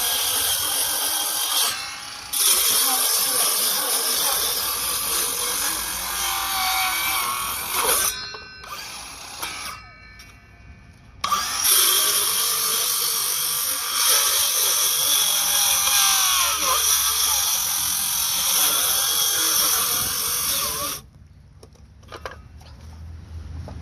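Cordless power saw cutting sideways into a wooden tree stump in three runs. It stops briefly about two seconds in, pauses for about three seconds near the middle, and stops a few seconds before the end.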